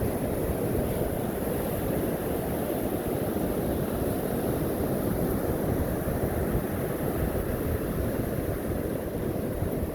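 Ocean surf on a beach, heard as a steady low rush mixed with wind rumbling on the microphone.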